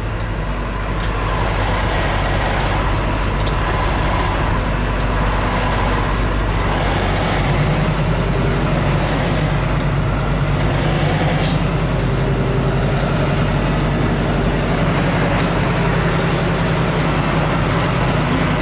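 Semi truck's diesel engine running at low speed, heard from inside the cab, its note growing fuller about seven and a half seconds in as it takes on more power.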